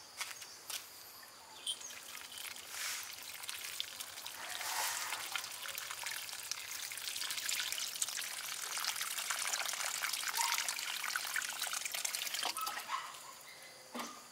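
Water trickling and pouring, building up about four seconds in and dying away near the end.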